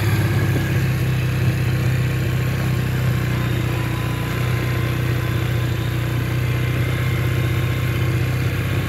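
Four-wheeler (ATV) engine running at a steady, even speed while riding along a dirt trail, with no revving.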